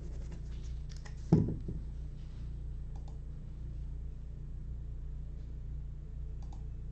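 A few light clicks and a single short thud about a second in, with a couple of faint clicks later, over a steady low hum.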